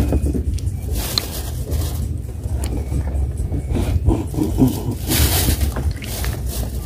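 Wind buffeting the microphone over open water: an uneven low rumble, with a stronger gust of hiss about five seconds in.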